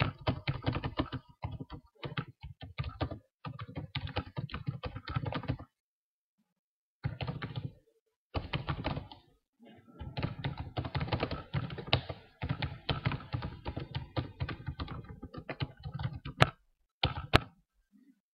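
Typing on a computer keyboard: runs of rapid keystrokes broken by short pauses, with a couple of sharper single clicks near the end.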